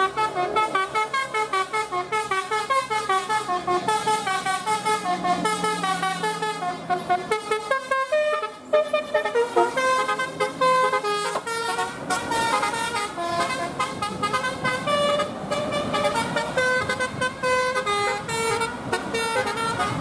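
Basuri telolet musical air horn on a bus playing a melody of short pitched toots, quick notes at first, a short break about nine seconds in, then somewhat longer held notes.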